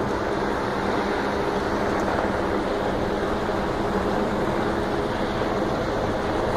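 Steady drone of running engines under a rushing hiss, holding level with no break.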